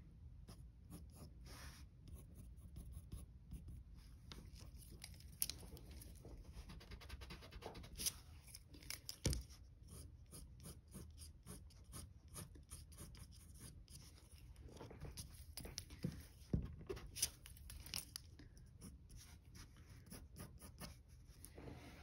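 Graphite pencil scratching on drawing paper in quick, light, repeated strokes, with a few sharper ticks among them.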